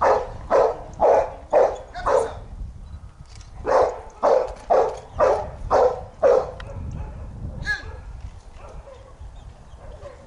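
A dog barking in steady runs of about two barks a second: one run at the start, a short pause, then a second run that stops a little past six seconds in.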